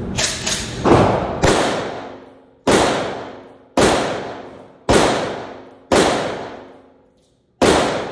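A 5.56×45mm rifle fired in a steady string of single shots, about one a second, into a Level III+ armor plate. Each shot is followed by a long echo dying away in the indoor range, with a couple of lighter cracks near the start.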